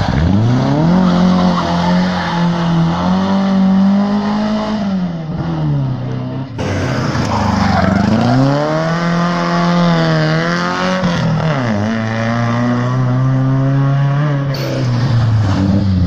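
Rally cars sliding sideways through a tarmac bend one after another, engines revving high and dropping back as the drivers work the throttle through the corner, with tyre noise from the slide. The sound switches abruptly to the next car about six and a half seconds in and again near the end.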